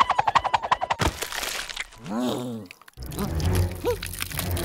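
Cartoon sound effects and voicing for a rat character: a fast run of short squeaky pulses, then a short warbling vocal sound about two seconds in, and a low rumble starting about three seconds in.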